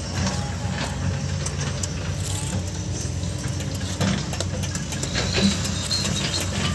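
A steady low engine hum, with scattered light knocks and scrapes of trowels and concrete blocks being laid, the clearest about four seconds in and again near five and a half seconds.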